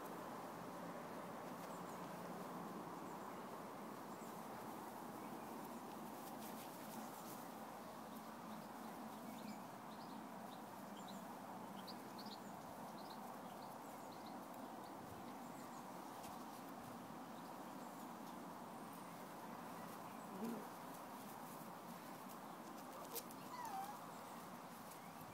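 Faint, steady outdoor background noise with a few short, faint yips and squeaks from young Labrador puppies play-fighting, the clearest two near the end.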